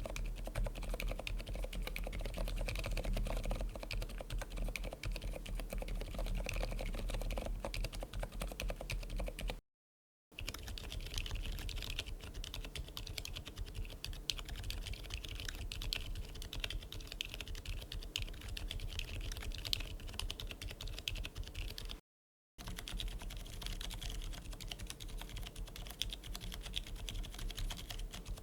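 Typing on mechanical keyboards fitted with KTT Mirror silent tactile switches: a dense, rapid run of keystrokes. It comes in three takes, separated by two brief silences.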